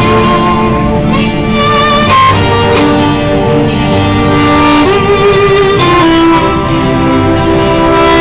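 Violin played live in a commuter train carriage: a slow melody of long held notes, some with vibrato, over the low rumble of the moving train.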